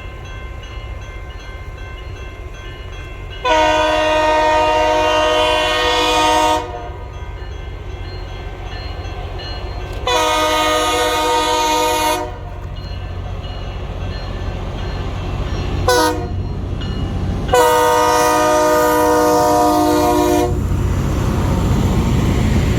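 Locomotive air horn sounding the grade-crossing signal: two long blasts, one short, then a long one. Underneath is the low rumble of the approaching train, which grows louder near the end.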